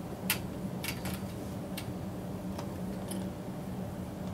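Beyblade top plate spinning in a plastic stadium, with about five sharp, scattered clicks as it knocks against the stadium. A low steady hum runs underneath.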